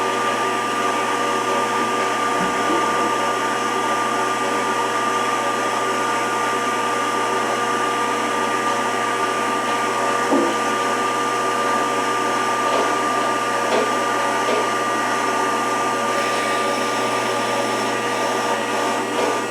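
Rockford 36-inch hydraulic open-side planer's hydraulic pump and drive motor running steadily after a cold start, a constant whine over a low hum, with a few faint knocks.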